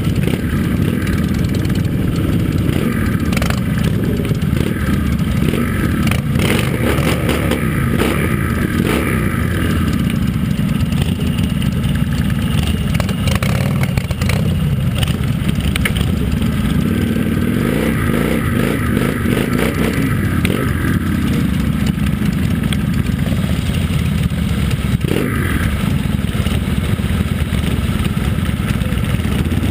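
Chopper motorcycle engine running close by, revved up a few times.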